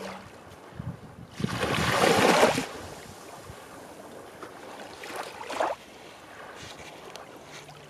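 Small waves washing up onto a sandy, shell-strewn beach: one loud rush of surf about a second and a half in, a smaller wash around five seconds in, and gentle lapping between.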